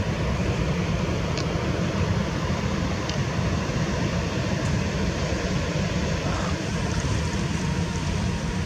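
Wind buffeting the microphone: a steady, choppy low rumble with a few faint ticks.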